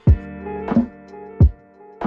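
Background music with a steady beat: sustained chords over a low drum hit about every three-quarters of a second.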